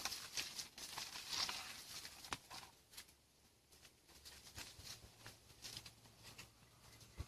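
Footsteps rustling and crackling through dry grass and weeds, with scattered clicks for the first couple of seconds, then dropping away to faint occasional ticks.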